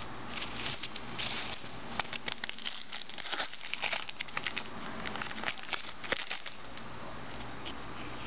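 Trading-card pack wrappers crinkling and cards being handled as packs are opened and flipped through, a dense irregular rustle with small clicks that dies down for the last couple of seconds.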